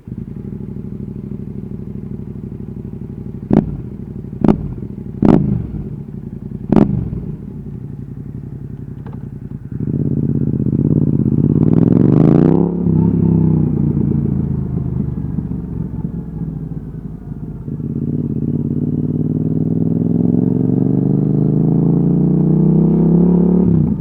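Yamaha XSR700's parallel-twin engine through an Akrapovic exhaust, idling with four quick throttle blips, then pulling away: the revs climb, drop at a gear change, and climb again.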